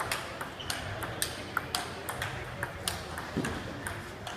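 Table tennis ball clicking off bats and table in a fast knock-up rally, about three to four sharp clicks a second.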